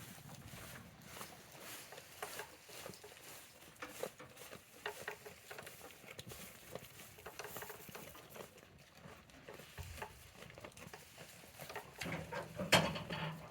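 Goats moving about in a shed: an irregular patter of light taps and rustles, with a louder scuffle near the end.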